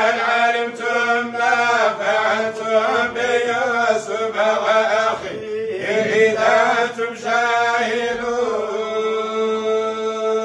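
A group of men chanting Quran recitation together in unison, melodic and drawn out, ending on a long held note near the end.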